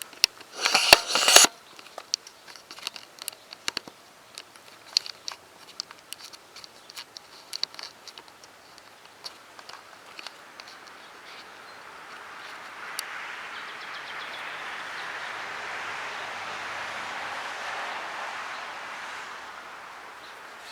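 Footsteps and rustling through garden plants, with a loud scraping rustle about a second in and scattered crackles after it. Later a steady rushing noise swells up and fades away over several seconds.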